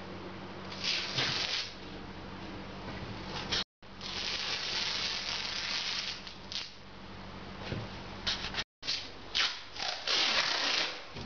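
Masking tape being pulled off the roll in several noisy stretches of a second or two, with short ticks between as it is pressed along a frame.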